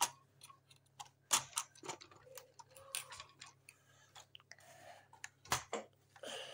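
Irregular light clicks and knocks of plastic Lego bricks being handled as a small Lego car is slotted into the model's cargo compartment, with a sharper knock about 5.5 seconds in.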